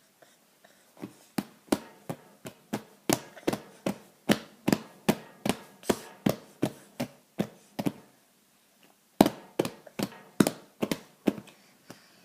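A steady run of short, sharp clicks, about three a second, stopping for about a second two-thirds of the way through and then starting again.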